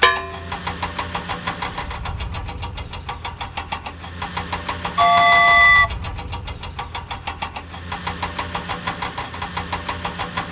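Cartoon sound effect of a toy train engine chugging in fast, even beats, about seven a second. About halfway through, a horn sounds once for just under a second.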